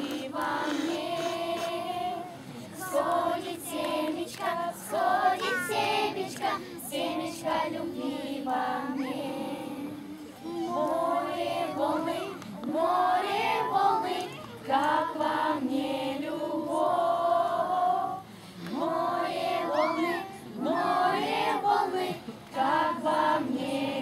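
A group of young children singing a song together, with two short breaks between phrases.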